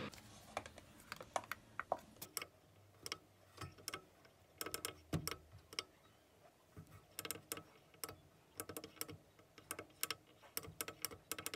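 Keypad buttons on myenergi Zappi and Eddi units being pressed in quick, irregular succession, each press a short click, while stepping through the linked-devices menus to pair the units.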